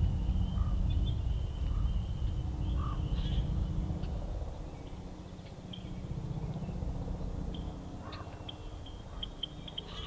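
Pond-side outdoor ambience: a low rumble that eases off about halfway through, under a steady high-pitched trill. A few short, faint calls come through, and a quick run of high chirps starts near the end.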